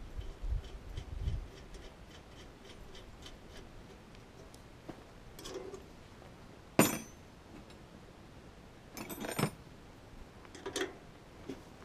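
Small metal parts and tools clinking and rattling by hand while a cement mixer's drive gear is put back together. Faint, even ticking in the first few seconds, one sharp clink about seven seconds in, and short rattles of loose hardware around nine and eleven seconds.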